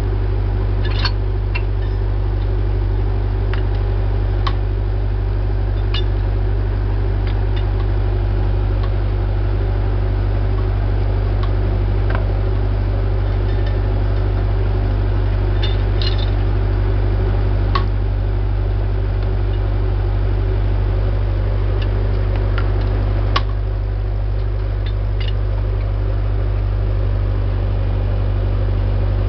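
HQ3 core drilling rig running steadily while drilling: a loud, even engine and hydraulic drone, with a few sharp metallic clicks scattered through.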